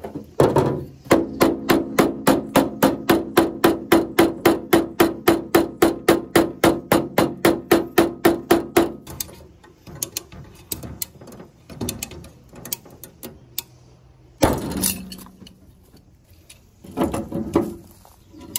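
Hammer blows on steel car body panel, a fast, steady run of about four strikes a second with the sheet metal ringing, lasting about eight seconds. It is followed by scattered lighter knocks and two heavier blows, in the dent repair of a crushed quarter panel.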